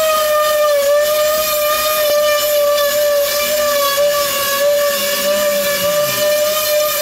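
Small motor running steadily with a high, even whine whose pitch wavers slightly.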